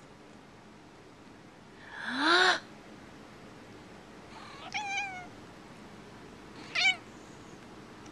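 Domestic cat meowing three times in displeasure, the cat's reaction to sneezing. The first call, about two seconds in, is the loudest and starts breathy with a rising pitch. A wavering call follows near five seconds and a short one near seven.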